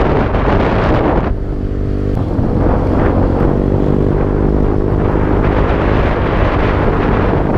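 Wind buffeting the microphone, then just over a second in the wind eases and a vehicle engine is heard running at a steady pitch, with wind still rushing underneath.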